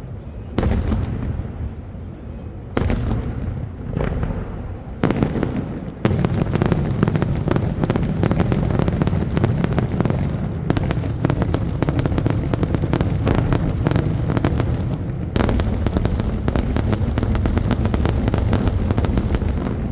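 Daytime fireworks: three single heavy booms about two seconds apart, each rumbling away, then from about six seconds a dense rapid barrage of bangs that keeps going with only brief breaks.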